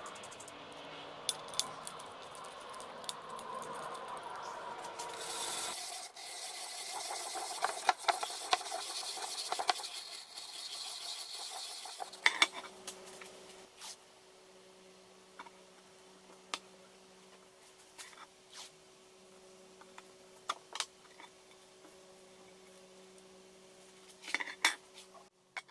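Angle grinder with a wire cup brush scrubbing bare metal on an old frying pan: a harsh rasping over a motor whine. The rasping stops after about twelve seconds, leaving a faint steady hum with scattered clicks and taps.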